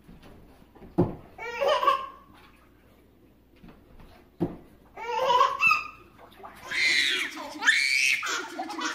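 A baby belly-laughing in short bursts, broken by two sharp thumps about a second and four and a half seconds in. Near the end the laughter comes back louder and longer, mixed with voices.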